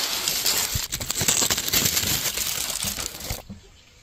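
Close crinkling, crackling rustle with many small snaps, cutting off abruptly about three and a half seconds in.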